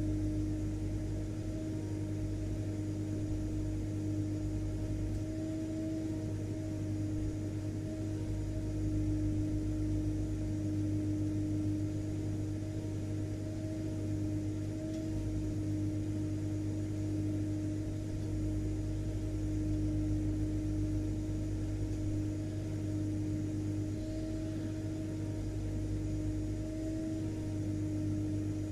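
Vacuum cleaner motor running steadily: a continuous low drone with a steady whine on top and no change in speed.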